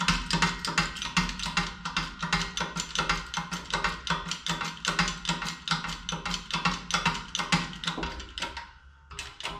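Background music with a fast, steady percussive beat over a held low note, stopping about eight and a half seconds in.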